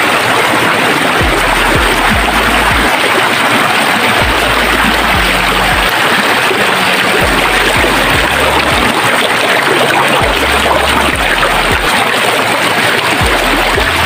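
Shallow rocky stream rushing over stones in a steady, even rush of water. Underneath it, low bass notes of background music come and go about every second.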